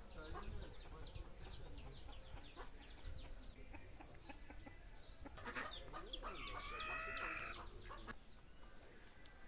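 Small birds chirping in quick, short falling notes. About five and a half seconds in, a chicken gives a drawn-out call lasting about two seconds.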